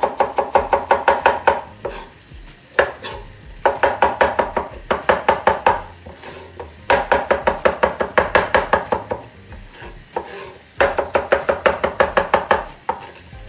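A kitchen knife chopping carrot on a cutting board: quick, even strokes, about seven or eight a second, in several runs of one to two seconds with short pauses between them.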